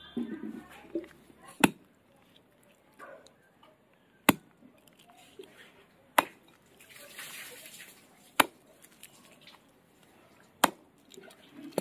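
Large knife chopping raw chicken on a wooden log block: five sharp chops at about two-second intervals, each blade stroke thudding through the meat into the wood.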